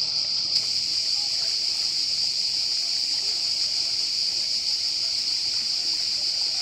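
Steady, high-pitched chorus of cicadas, with faint voices beneath it.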